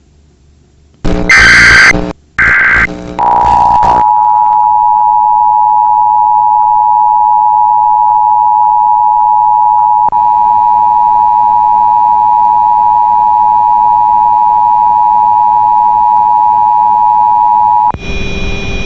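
Emergency Alert System test signal: about a second in, loud bursts of the digital SAME header data, then the steady two-tone EAS attention signal held for about fourteen seconds until it stops near the end.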